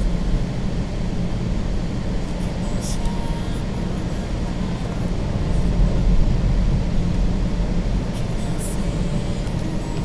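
Steady low rumble of a car's engine and tyres on a snowy road, heard from inside the cabin while driving. Two brief high ticks, about two and a half seconds in and near the end.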